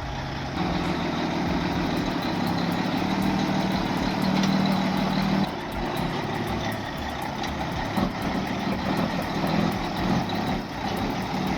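Loaded logging truck's diesel engine running under heavy load with a steady drone, easing off and dropping in level about halfway through.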